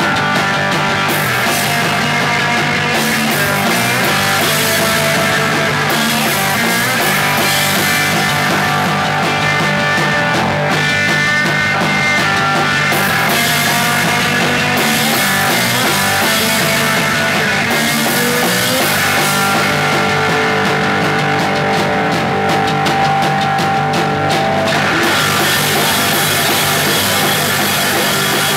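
Live punk rock band playing loud and continuously: electric bass, guitar and a drum kit with cymbals washing over the top.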